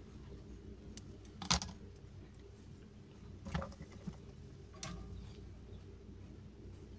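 A few faint clicks and rustles of thin hookup wire being handled and its insulation stripped, the sharpest click about a second and a half in, over a low steady background hum.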